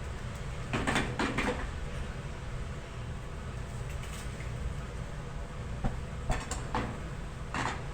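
Short clatters and knocks of kitchenware being handled, in a cluster about a second in and another near the end, over a steady low hum.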